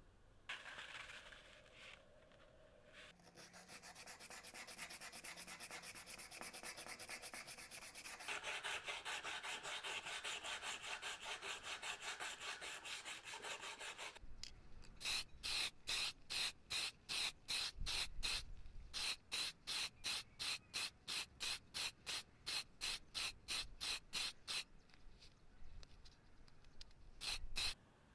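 Hand-sanding the metal gear housing of a Makita DF458D cordless drill with sandpaper, rasping back and forth. A long run of fast, even strokes gives way about halfway through to slower, separate strokes about three a second, stopping a few seconds before the end, with a couple more near the end.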